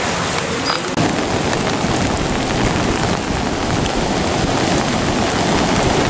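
Heavy rain pouring steadily, with a low rumble joining about a second in.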